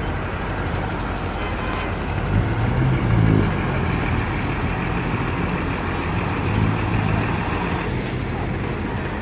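Heavy diesel engine running steadily, its revs rising briefly about two and a half seconds in and again near seven seconds.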